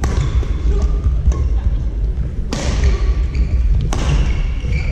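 Badminton doubles play in a sports hall: three sharp strikes, a few seconds apart, and short high squeaks of shoes on the court floor, over a steady low rumble.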